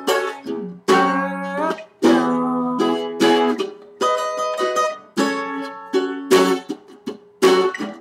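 Small travel acoustic guitar strumming a chorus progression of F sharp minor, E and D chords. A fresh chord is struck about every second and left to ring out.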